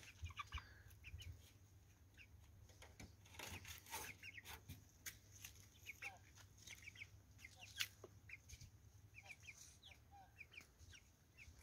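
Chickens clucking faintly from a coop, in scattered short calls, with a few soft clicks and one louder knock about eight seconds in.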